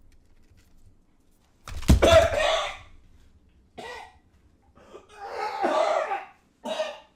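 A man coughing in four separate fits, the first one, about two seconds in, the loudest.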